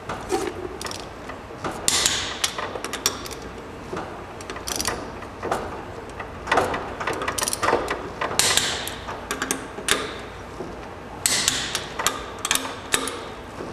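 Ratchet of a click-type torque wrench clicking in short, irregular bursts as wheel nuts are tightened to 100 foot-pounds.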